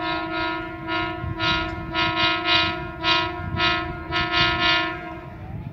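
Hitachi diesel locomotive's horn sounding a long run of rhythmic blasts, a steady chord pulsing about twice a second, over a low rumble. The horn stops a little over five seconds in.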